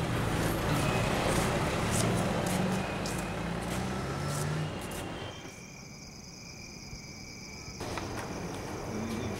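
Car engines and traffic noise in a parking lot. About five seconds in it drops to a quieter steady chirring of crickets.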